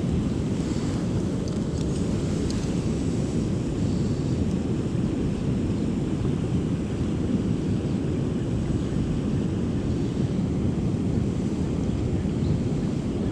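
Steady low rushing roar of river water pouring through a dam, even and unbroken.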